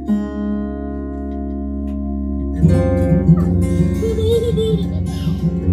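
Recorded music played loud through bookshelf hi-fi speakers driven by an Eytse P60 Class D amplifier, picked up by a camera microphone. Held notes at first, then about two and a half seconds in a heavy bass line and a beat come in.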